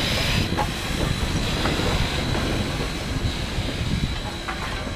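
A train running on the Zig Zag Railway line: a steady rumble with scattered clicks and knocks.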